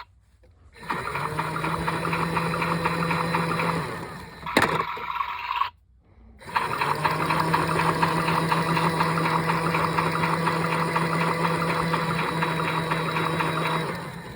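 Small battery-powered washing machine's motor spinning the drum with a steady hum. It starts about a second in and stops after about three seconds, then after a click and a short pause it starts again and runs steadily until near the end.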